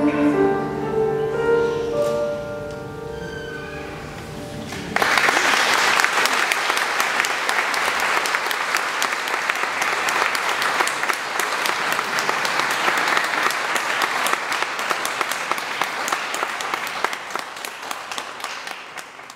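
The closing chords of a Seiler grand piano and the singer's last held note fade away. About five seconds in, an audience breaks into sustained applause, which fades out near the end.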